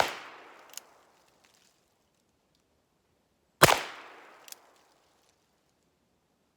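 Two shots from a Ruger Wrangler single-action .22 LR revolver, one at the start and one a little over halfway through, each with a short echo tail. A smaller sharp click follows each shot by just under a second.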